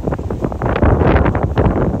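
Strong wind buffeting the microphone in loud, irregular gusts.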